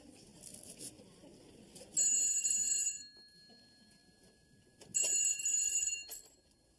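Telephone ringing twice, each ring lasting about a second, roughly three seconds apart.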